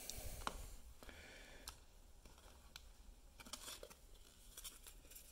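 Faint handling sounds: a rubber grommet being worked by hand into the hole of a stiff plastic headlight dust cover, with scattered small clicks and ticks of rubber and plastic.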